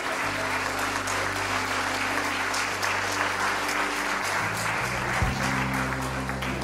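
Congregation applauding over instrumental music with long held bass notes that shift a few times; the clapping thins out near the end.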